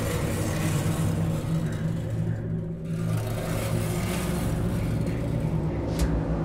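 Low, steady rumbling drone from a horror soundtrack, with a few sustained low tones holding throughout.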